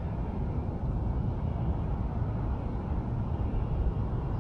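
Wind buffeting the microphone: a steady low rumble that flutters unevenly.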